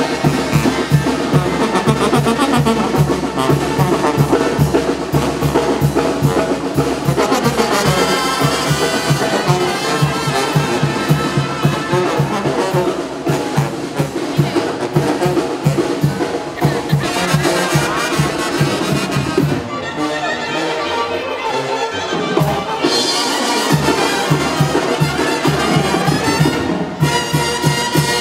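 Brass-band music with trumpets and trombones over a steady beat.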